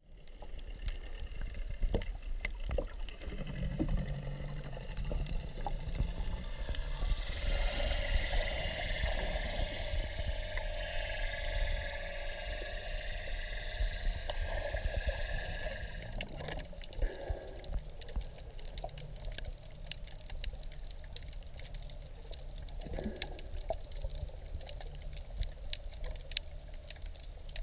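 Water heard underwater: a low muffled rumble with scattered sharp clicks, growing brighter and busier from about seven to sixteen seconds in.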